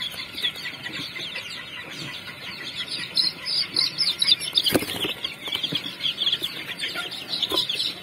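A brood of ten-day-old chicks peeping without pause in many short, falling chirps, with a knock about five seconds in and a lighter one near the end.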